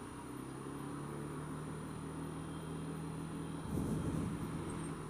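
Honda Dio scooter engine running steadily at low speed in traffic. About three and a half seconds in, it rises briefly into a louder rush of engine and wind as the scooter pulls away through a turn.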